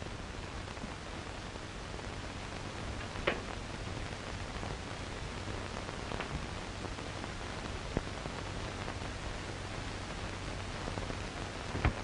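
Steady hiss and crackle of an old optical film soundtrack with a low hum underneath, broken by a few faint clicks.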